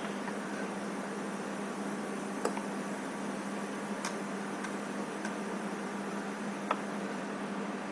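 Steady hiss with a hum, broken by a handful of light clicks as hands handle a dental carving wax block.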